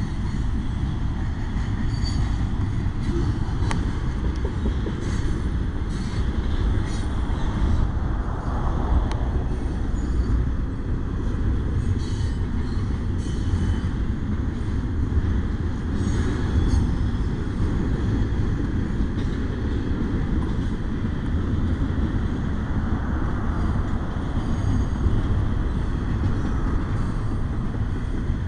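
Double-stack intermodal freight train rolling past a grade crossing: a steady rumble of wheels on rail, with scattered faint clicks.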